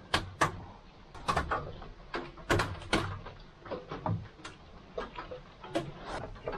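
Irregular clicks and knocks of small parts being handled and fitted at the carburettor and air-filter mounting of a Briggs & Stratton Vanguard 6 HP generator engine.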